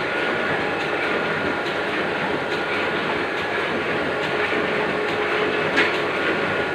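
Oliver offset printing press running steadily at normal speed: a continuous mechanical clatter with a faint steady whine, and a sharper click near the end.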